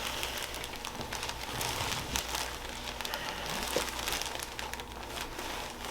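Rustling and crinkling from clothing and the treatment table as a patient is moved into position, with scattered small clicks.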